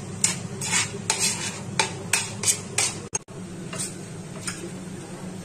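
Steel spoon scraping and stirring thick khova (milk cooked down to a paste) around a stainless steel pan, a quick scrape every half-second or so. After a brief break about three seconds in, two more scrapes or taps follow, over a steady low hum.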